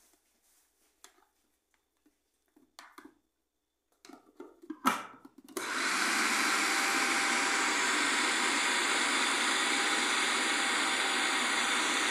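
Electric food processor running steadily, chopping a mixture of bulgur wheat and ground meat for kibe. It starts about halfway through, after a few light clicks and knocks from the bowl and lid being handled, the loudest just before the motor starts.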